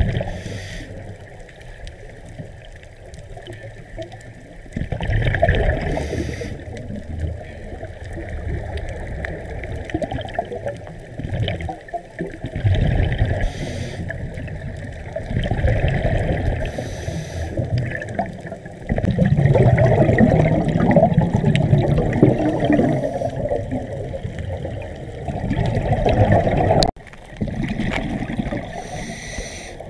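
Running water, rising and falling in loudness, with a sudden drop near the end.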